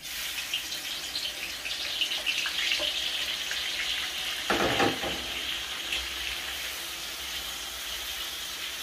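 Finely chopped onions hitting hot oil in a large karahi and frying with a steady sizzle that starts suddenly, with a brief knock about halfway through.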